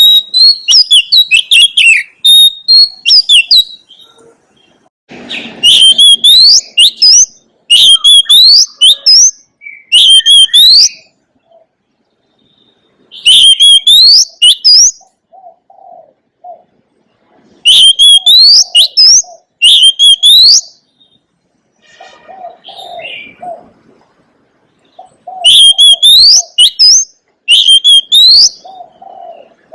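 Oriental magpie-robin singing loud, varied whistled phrases of rapid sweeping notes, in about eight bursts of one to three seconds with short pauses between. Quieter low, short notes from another bird sound in the background in the second half.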